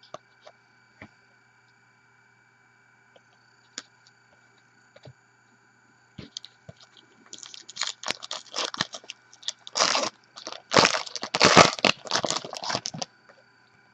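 Trading card pack wrapper being torn open and crinkled. A few faint clicks of card handling come first, then about six seconds of crinkling and tearing, loudest about two-thirds of the way through.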